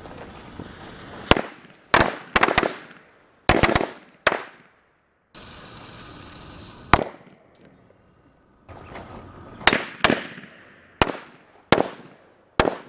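Firecrackers going off one after another: about a dozen sharp bangs, each with a short echo, irregularly spaced and some in quick pairs. Around the middle a steady hiss runs for about a second and a half before one of the bangs.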